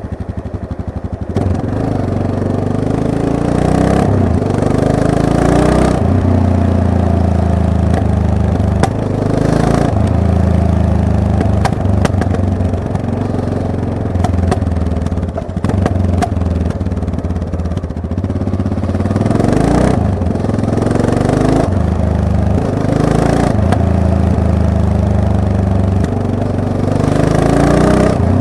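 Yamaha MT-03 motorcycle engine being ridden, the revs climbing and dropping several times.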